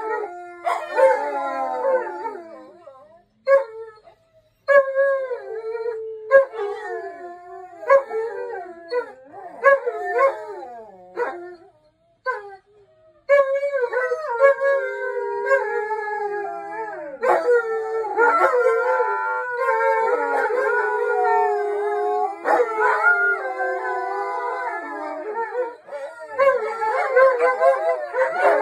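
Several dogs howling together, their long howls overlapping and gliding up and down in pitch. The howling breaks off briefly about three seconds in and again around twelve seconds, then runs as an unbroken chorus from about thirteen seconds on.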